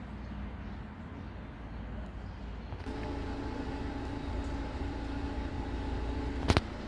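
Town street ambience: a steady low rumble of distant traffic. About three seconds in, a steady droning hum of several fixed tones joins it, and it stops with one sharp click near the end.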